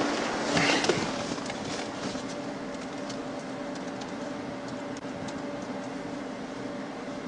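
Steady hum of an idling police car picked up by a bodycam microphone, with a brief rustle about a second in.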